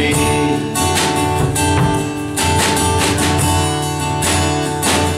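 Acoustic guitar strumming chords in a steady rhythm, with a snare drum played with sticks keeping time: an instrumental stretch between sung lines of the song.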